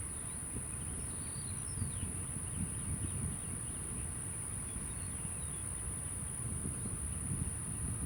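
A steady high-pitched insect chorus drones without a break, over a low uneven rumble. A few faint bird chirps sound in the first couple of seconds.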